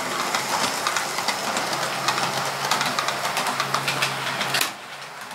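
TT-scale model VT 175 diesel express railcar running past on the layout: a steady motor hum with a fast rattle of wheel clicks on the track, falling away sharply about four and a half seconds in.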